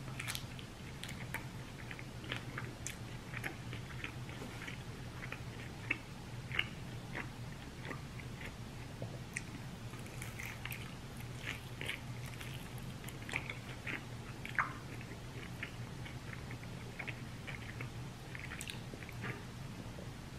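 Close-miked chewing of chicken wings: irregular wet smacks and small crunching clicks over a low steady hum.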